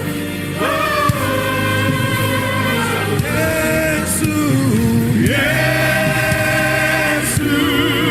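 Gospel worship music: a congregation or choir singing long held, gliding notes over a steady keyboard-and-bass accompaniment.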